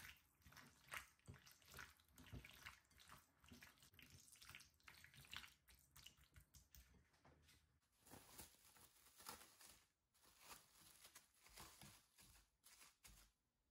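Faint, irregular wet squelching of hands mixing raw lamb chunks with papaya pulp and spices in a glass bowl, then a light rustle of cling film being stretched over the bowl near the end.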